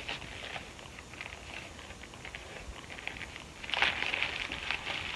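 Plastic packaging crinkling and rustling as clothing is unwrapped, with irregular small crackles and a louder burst of crinkling about four seconds in.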